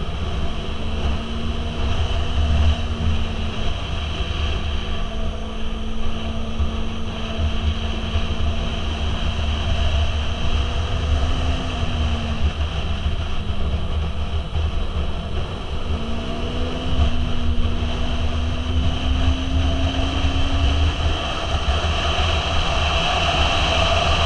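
Motorcycle engine running at road speed, heard from the rider's seat over a heavy rumble of wind; its note rises and falls a few times with the throttle and drops near the end.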